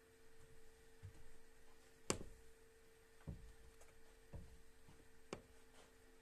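Quiet room tone with a steady hum, broken by a sharp click about two seconds in, two dull thumps a second apart after it, and another click near the end.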